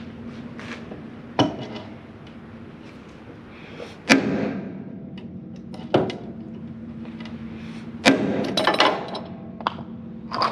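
Hammer striking a crimping tool to crimp a lug onto a heavy starter cable: several sharp metallic blows a couple of seconds apart, with a quicker run of blows near the end.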